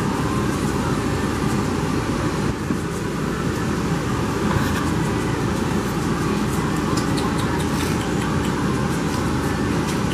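A steady rushing noise that stays even in loudness, with a few faint ticks in the second half.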